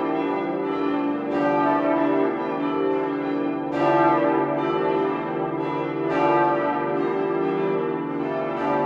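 Full peal of church bells: several swinging bells ringing together, their strikes overlapping over a sustained hum of their tones, with the loudest strikes coming about every two and a half seconds.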